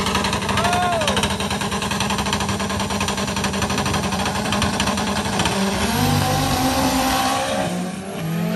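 Drag-race car engine running loudly and steadily with a rapid, pulsing exhaust note. There is a brief rising-and-falling whine about a second in, and the engine pitch shifts about six seconds in and again near the end.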